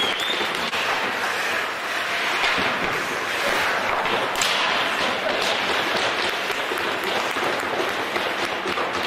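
Ice hockey game in an arena: a steady wash of crowd noise with many sharp cracks of sticks and puck on the ice and boards, one louder crack about four and a half seconds in.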